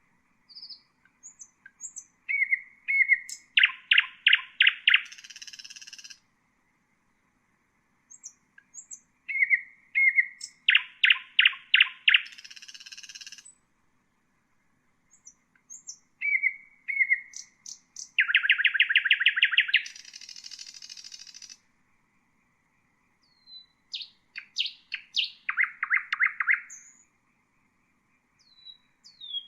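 Nightingale singing in separate phrases of a few seconds, with pauses of about two seconds between them. Most phrases start with a few short whistles, run into a fast series of repeated notes and end in a harsher buzzing rattle.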